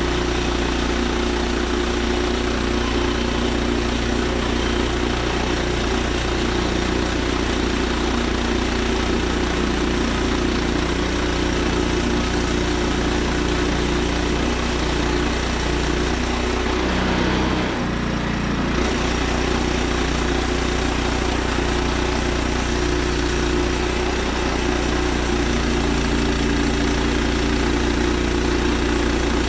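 Woodland Mills HM122 portable sawmill's gas engine running steadily while its band blade cuts the first slab off a black oak log. The engine note shifts briefly a little past halfway.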